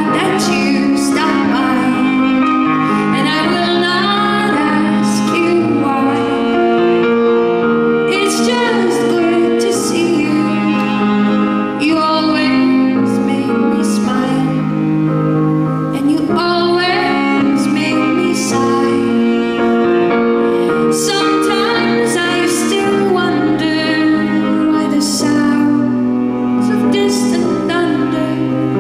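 A woman singing live, accompanying herself on a Steinway grand piano.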